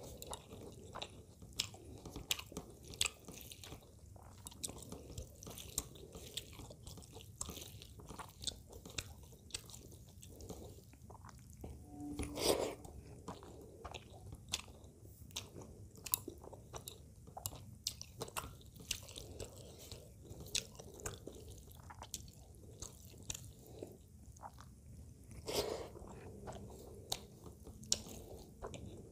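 Close-miked chewing of a mouthful of rice and fish curry, with frequent small wet mouth clicks and lip smacks. There are two louder, fuller mouth sounds, about twelve seconds in and a few seconds before the end.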